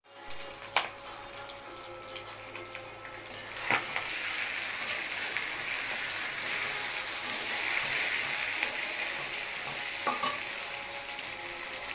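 Chunks of meat frying in oil in a pan, a steady sizzle that grows louder a few seconds in. A spoon knocks against the pan three times as the meat is stirred.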